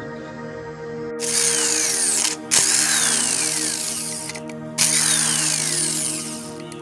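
Electric impact wrench run in three bursts on bolts inside a car AC compressor's housing, its pitch falling as each burst runs on.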